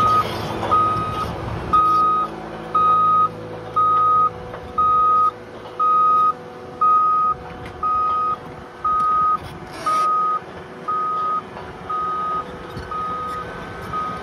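Cat MD6200 rotary blasthole drill's warning alarm beeping steadily, a single tone about once a second, over the hum of the running machine. A short hiss about ten seconds in.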